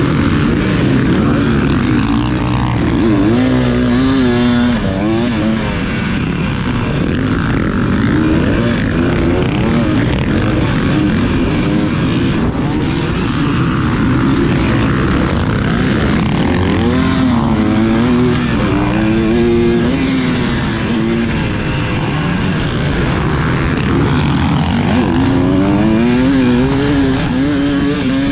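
Dirt bike engine racing round a motocross track, its pitch climbing and dropping again and again with the throttle and gear changes.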